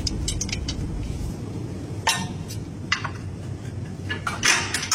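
Scattered light metallic clicks and clinks of parts and tools being handled while a stopper pad is fitted at the front lower control arm's centre bushing. A steady low rumble runs underneath, and the clicks are loudest in a cluster near the end.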